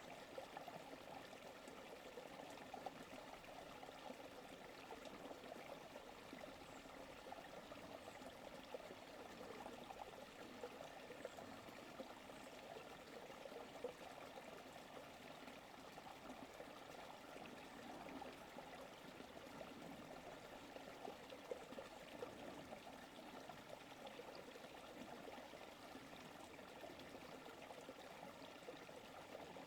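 Forest creek flowing and trickling, a faint, steady wash of running water.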